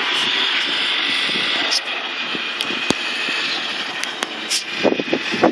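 Steady whirring vehicle noise with no clear pitch.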